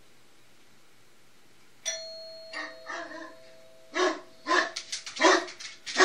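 A two-note ding-dong doorbell chime about two seconds in, the second note lower, ringing on as it fades. About two seconds later a dog starts barking, about four barks louder than the chime.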